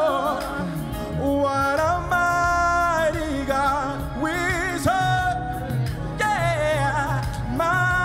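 Live gospel singing: wordless vocal runs and long held notes over a band, with backing singers.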